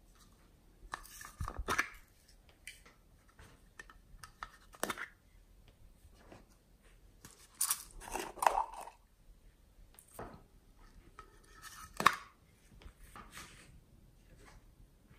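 Small plastic paw-shaped pots being handled and opened: scattered plastic clicks and taps with quiet gaps between them, and a sharper click about twelve seconds in.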